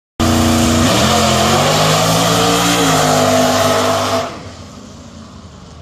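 Drag-race car engine at full throttle, accelerating hard down the strip, its pitch climbing and dropping back with each gear shift. It starts abruptly and its level falls off sharply about four seconds in.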